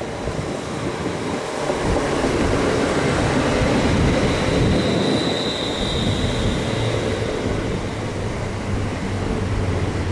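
Class 350 Desiro electric multiple unit running past along the platform, its wheels on the rails rising to a loud rush about two seconds in. A brief high whine comes around the middle, and a low steady hum follows later as the carriages go by.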